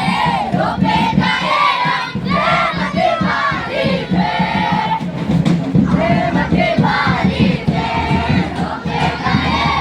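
A group of children singing loudly together in a chant-like song, with shouts mixed in, over steady rhythmic drumming.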